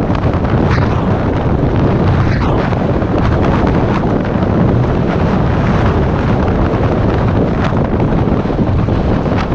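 Wind rushing over the microphone on a fast downhill mountain-bike descent, over the steady rumble of the tyres on the dirt track, with a few sharp knocks from the bike hitting bumps.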